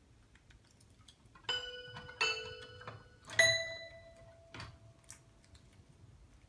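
Toy piano keys pressed by a squirrel: three single notes struck within about two seconds, each ringing briefly with bright, bell-like overtones. The third note is higher, the loudest, and rings longest. Faint scattered clicks sound around them.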